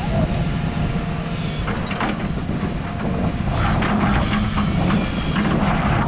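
Backhoe's diesel engine running steadily, with several short bursts of higher-pitched noise over the drone.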